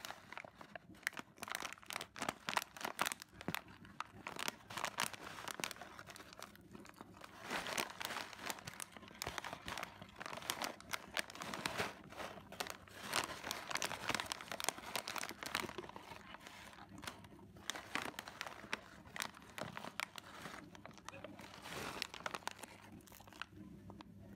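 Shiny plastic snack bag of chips crinkling and crackling as it is squeezed and turned over in the hands, in a dense run of irregular crackles that thins out near the end.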